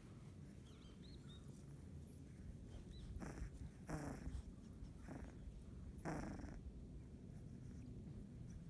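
Sleeping 18-day-old Labrador retriever puppies breathing and snuffling: about four short, noisy breaths between three and seven seconds in, over a steady low rumble.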